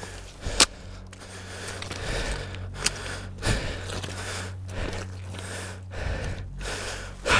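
Handling noises of a rifle and gear being worked in wet mud: scrapes and rustling, with a sharp click about half a second in, a lighter click later and a louder knock near the end, over a low steady hum.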